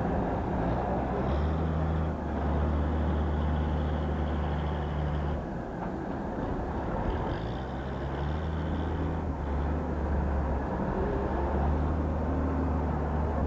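Engine of a Clark wheel loader working in demolition rubble, running with a steady low note that drops away and picks up again a few times, over street noise.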